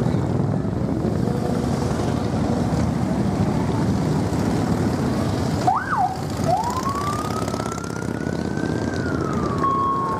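Harley-Davidson motorcycles running past in a slow parade, a steady rumble of engines. About six seconds in a siren sounds over them: a short whoop, then a long wail that slowly rises and falls.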